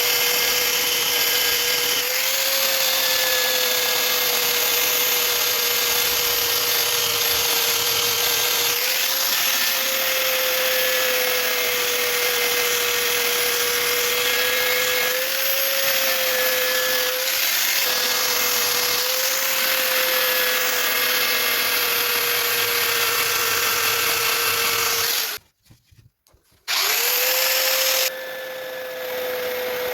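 Electric belt sander running with a steady motor whine over a coarse sanding hiss, the pitch sagging slightly now and then. It cuts out suddenly for about a second near the end, then runs again.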